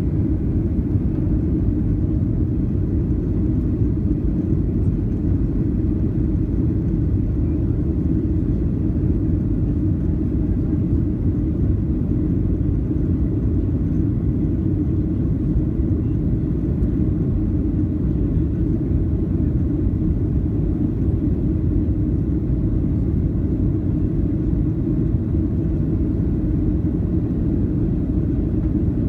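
Steady low rumble of a Boeing 737-800 airliner heard from inside the passenger cabin: engine and airflow noise that does not change.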